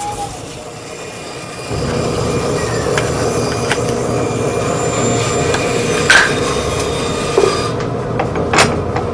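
A power tool starts about two seconds in and runs steadily, cutting into the ash hurley blade held in a vice, with a few sharp knocks along the way.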